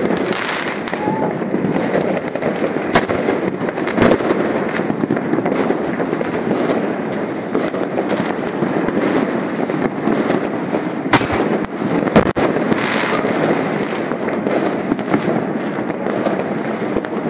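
Fireworks going off: a dense, continuous crackling and popping from many fireworks at once, with a few sharp single bangs standing out, among them shots from a handheld Roman candle tube.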